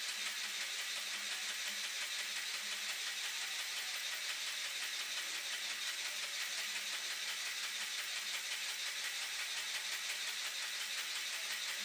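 Steady hiss with a faint low hum and no distinct events: room tone.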